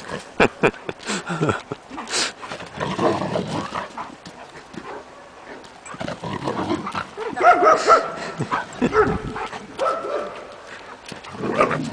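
Dogs barking in bouts during rough play, a golden retriever and a large black dog, with a few sharp knocks about half a second in.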